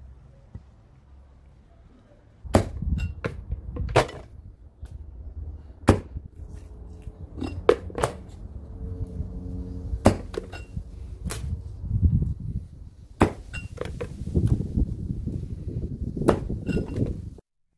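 Irregular sharp knocks and clinks of hard objects being handled and set down, starting about two and a half seconds in, over a low rumble. The sound cuts off suddenly near the end.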